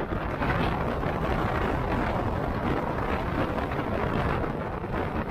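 Steady wind rush and road noise of a motorcycle underway, caught by an action camera's microphone.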